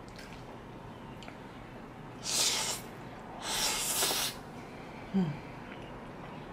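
Spaghetti noodles slurped into the mouth: two airy slurps about two and three and a half seconds in, the second one longer. A brief low sound follows about five seconds in.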